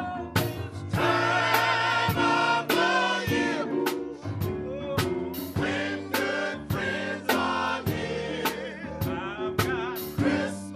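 Men's gospel choir singing with vibrato over a steady drum beat.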